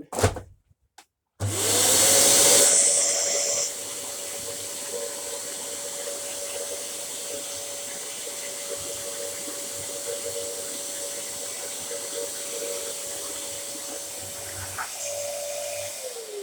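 Dyson DC07 upright vacuum cleaner switched on: after a couple of knocks the motor spins up with a rising whine, runs loud for the first two seconds, then settles to a steady hum with airflow hiss, and near the end is switched off and winds down with a falling whine.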